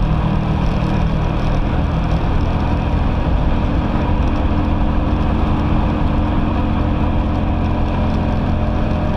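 BMW 330i ZHP's straight-six engine running under load at track speed, its pitch held fairly steady, with wind and road noise.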